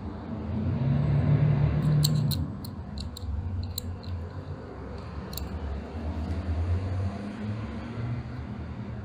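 A handful of light, sharp clicks of small metal grinder parts as a ring is fitted onto the hand grinder's central shaft, over a steady low rumble.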